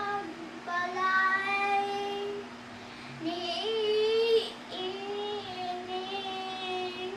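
A child's voice singing long held notes of a Cebuano Christmas song, with a wavering note about four seconds in.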